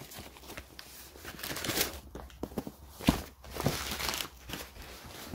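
Brown wrapping paper being torn and pulled off a box, rustling and crinkling in irregular bursts, with a couple of sharp knocks.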